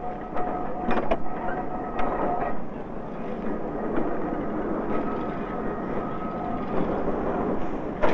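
Loading machinery at a cement works running with a steady clatter and a faint whine, with a few sharp knocks in the first couple of seconds.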